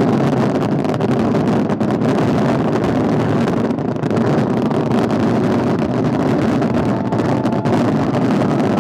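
Fireworks display heard as a steady, dense rumble of many overlapping shell bursts and crackling, with no single bang standing out.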